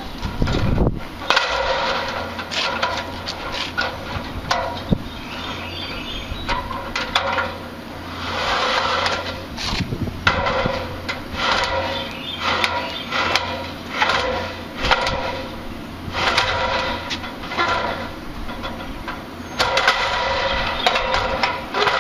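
Aluminum extension ladder being handled: its metal sections sliding and scraping with a ringing squeal, broken by clanks and knocks, in repeated bursts.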